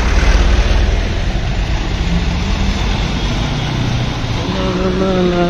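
Street traffic noise from moving along a road, a steady roar with a heavy low rumble, strongest in the first second. Near the end a pitched tone with several overtones comes in and slides slowly lower.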